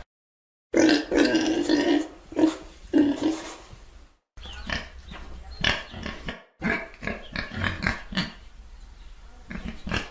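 Domestic pigs grunting and oinking, the loudest, fullest grunts in the first few seconds, then quicker, shorter grunts. The sound drops to dead silence briefly at the start and twice more where separate recordings are joined.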